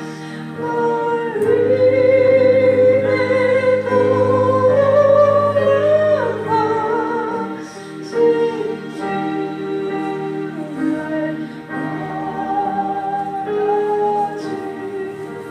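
Slow church worship music: long sustained chords under a melody line with vibrato, swelling loudest in the first half and easing off after about seven seconds.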